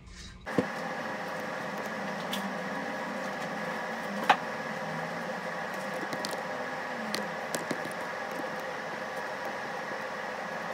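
Steady machine hum with several fixed tones, starting abruptly about half a second in, with a few sharp clicks over it, the loudest about four seconds in.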